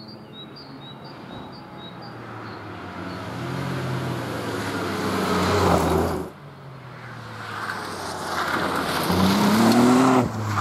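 Ford Fiesta rally car's engine approaching at full throttle, its note climbing and getting louder. It breaks off abruptly about six seconds in, then builds again to a louder, rising peak that drops sharply just before the end. Faint bird chirps at the start.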